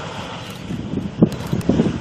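Wind buffeting the microphone: irregular low rumbling gusts over a steady background hiss, growing stronger about halfway through with one sharp gust just past a second in.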